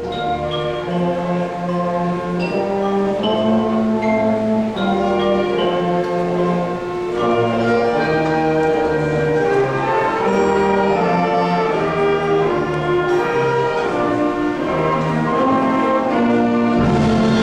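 Orchestral music: a melody of sustained notes over a bass line, with bell-like tuned percussion.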